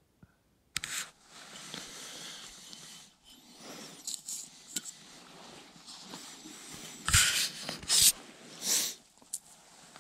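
Close rustling and rubbing of clothing and gear being handled, starting just under a second in, with short scrapes throughout and three louder scraping rustles in the last few seconds.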